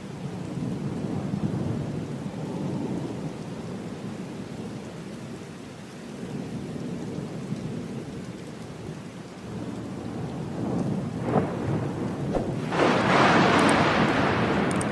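Heavy rain falling steadily under low, rolling thunder. About eleven seconds in come a few sharp cracks, then a loud, close thunderclap that carries on to the end.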